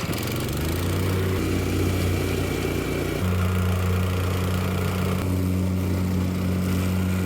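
Gas engine of a plate compactor running. Its speed picks up in two steps in the first few seconds, then it runs steadily.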